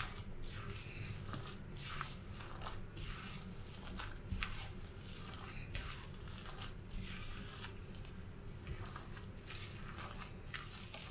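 Bare hands squeezing and kneading a wet batter of glutinous rice flour, coconut milk and desiccated coconut in a bowl, making soft wet squeezing sounds that repeat irregularly.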